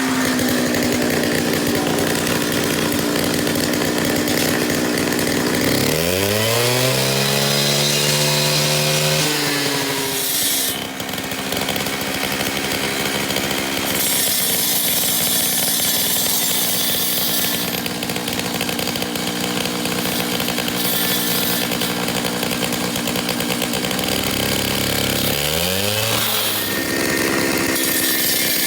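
Gas-powered concrete saw running at high speed, cutting concrete. Twice the engine pitch drops and revs back up: about six seconds in and again near the end.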